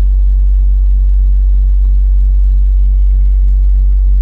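A 10-inch car subwoofer on a 1500-watt amp plays a loud, steady deep test tone around 48 Hz in a sealed car cabin during an SPL meter run. A faint buzz pulses above it about four times a second.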